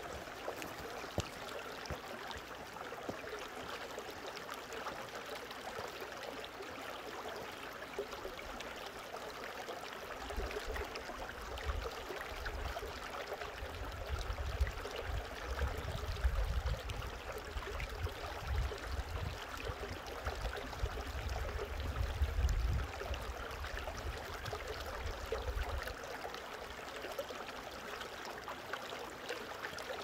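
Shallow mountain stream flowing over rocks and stones, a steady rush and trickle of water. Through the middle a low rumble comes and goes beneath it.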